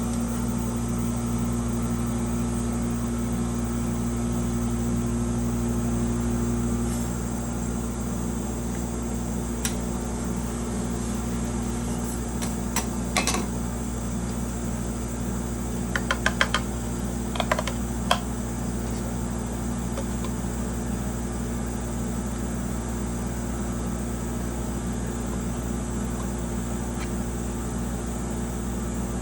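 Steady electric hum of a rolled-ice-cream cold-plate machine running, one of its tones dropping away about a quarter of the way through. A few sharp clicks and taps come near the middle, a short run of them clustered together.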